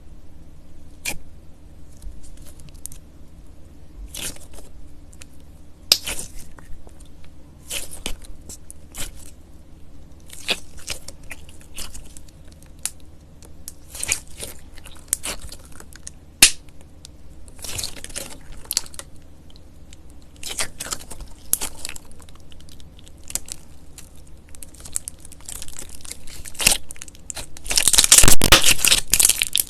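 Slime being pressed and stretched by hand, giving repeated short crackles and crinkles, with a louder dense burst of crackling near the end.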